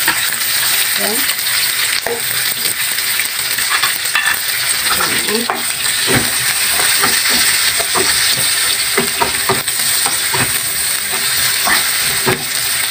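Chopped onion and garlic sizzling in hot oil in a pan, with a steady hiss, while a spatula stirs them, scraping and knocking against the pan at irregular moments.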